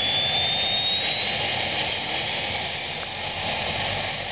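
Ultralight helicopter's engine running steadily on the ground, with a high whine that climbs slowly and evenly in pitch.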